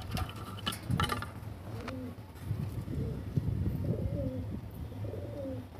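Domestic pigeon cooing, a run of low, rolling coos repeated roughly once a second. Some brief rustling and clicks come in the first second.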